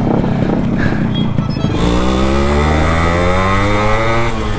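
Yamaha RX100's 98 cc two-stroke engine pulling hard under acceleration while riding, its pitch climbing steadily from about two seconds in, with a short break near the end like a gear change. A rushing noise covers the first couple of seconds.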